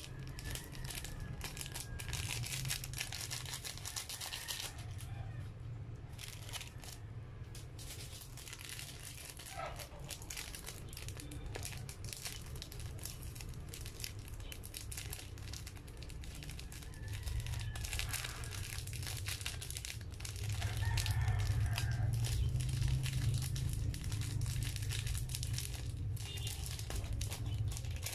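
Small plastic instant-noodle seasoning sachets crinkling and rustling in the hands as they are torn, shaken and squeezed out, in many short sharp crackles. A steady low hum runs underneath and grows louder in the second half.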